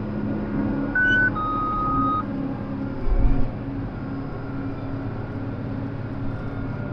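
Tractor engine running steadily, heard inside the cab, with a two-tone electronic beep about a second in: a short higher note, then a longer lower one. A low thump follows around three seconds in.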